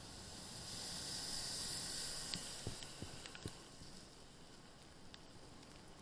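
Muffled hiss of tyres on wet asphalt, swelling for about two seconds and then fading, with a few light clicks near the middle.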